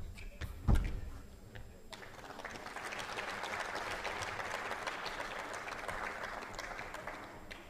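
Crowd applauding a won point in a badminton match, rising about two seconds in and fading away near the end. It is preceded in the first second by a few sharp shuttlecock hits and a heavy thump as the rally ends.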